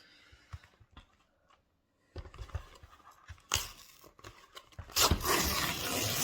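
A postal packet being torn open by hand: rustling and crinkling of the wrapping, a short tear about halfway through, and a longer, louder tear near the end that stops abruptly.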